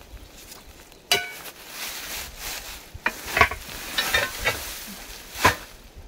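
Rusty scrap steel being dragged and lifted out of dry grass and leaf litter: rustling and scraping, with a ringing metallic clank about a second in and several more knocks of metal after it, a sharp one near the end.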